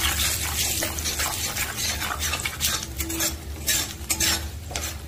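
A steel spatula scraping and stirring in a kadai, in repeated irregular strokes, while bay leaves, dried red chillies, panch phoron and black cumin sizzle in hot oil.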